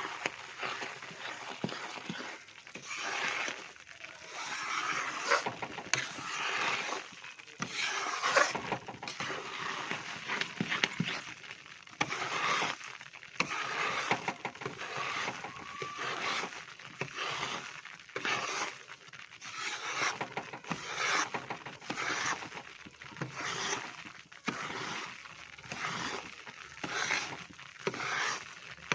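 A spatula scraping around a kadhai, stirring besan roasting in ghee, in repeated uneven strokes about once a second.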